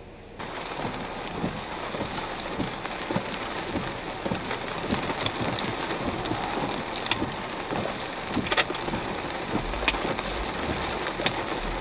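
Rain falling on a vehicle's windshield and body, heard from inside the vehicle: a steady wash of rain with many separate, sharp drop hits. It begins suddenly about half a second in.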